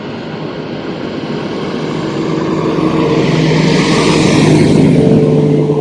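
Outboard motor of a fishing boat passing close by at speed, a steady engine drone that grows louder as the boat approaches, peaks about four to five seconds in, and starts to fade near the end.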